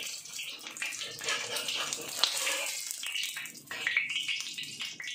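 An egg frying in hot oil in a cast iron wok: steady sizzling and crackling, with a steel spatula scraping under the egg to lift it.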